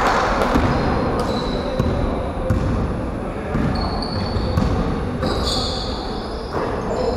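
Basketball bouncing on a wooden parquet gym floor as it is dribbled up court, with short high sneaker squeaks on the court now and then.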